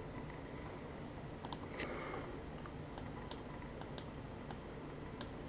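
A few light, sharp clicks at irregular intervals, about eight in all, over a faint steady low hum, the sort made by tapping or clicking on a device.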